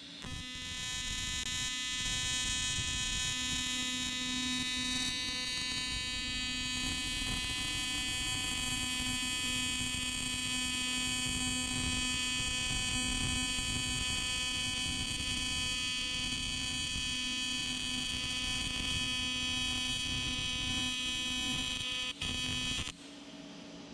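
AC TIG welding arc on aluminum: a steady electrical buzz held for over twenty seconds, with a brief dip near the end, then cut off suddenly as the torch is released.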